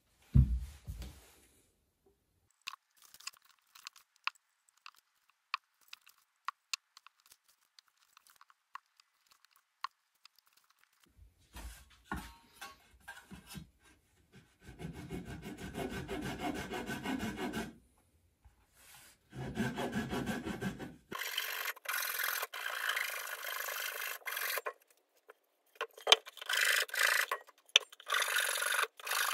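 A Japanese flush-cut dowel pull saw trimming protruding purpleheart splines flush with the walnut corners of a tray, in several runs of quick rasping strokes through the hardwood. Before it come a single knock and a series of light clicks.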